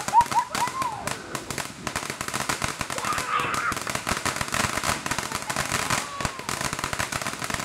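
Ground firework spraying sparks and crackling, a dense, rapid stream of small pops that keeps going without a break.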